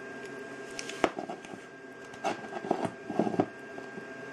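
Cordless drill's plastic gear case and motor clicking and knocking as they are handled and set down on a wooden table: one sharp click about a second in, then a scatter of small rattling clicks, over a steady faint hum.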